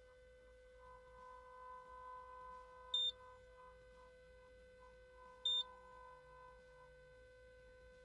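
Two short, high electronic beeps about two and a half seconds apart from a Mark-10 wire terminal pull tester during a crimp pull test, over a faint steady hum.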